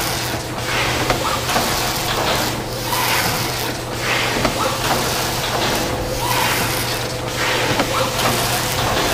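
Rigid-box making machinery running through a repeating cycle, with the noise dipping about once a second over a steady electric hum.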